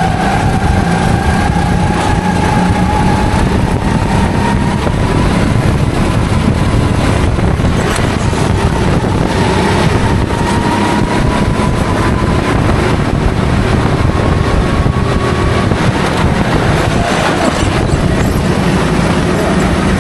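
Go-kart engine running hard under throttle, its pitch climbing slowly for long stretches, dipping briefly about three-quarters of the way through, then climbing again near the end.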